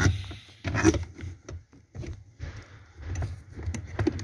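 Car brake pedal assembly being worked loose and pulled out from under the dashboard: scattered knocks and clicks of metal and plastic parts, with rubbing and scraping between them.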